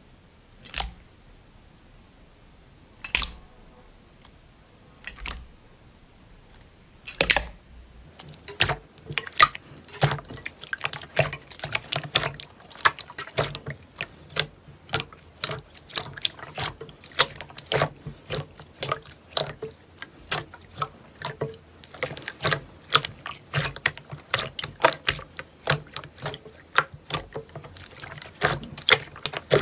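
Slime being squeezed and pressed: a few separate sticky pops, then from about eight seconds in a fast, irregular run of crackling clicks and pops.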